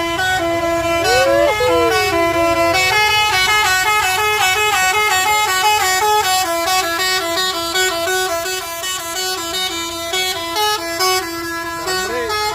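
Bus telolet horn, a Basuri multi-tone air horn on a bus, playing a fast stepping tune of bright tones that change pitch several times a second.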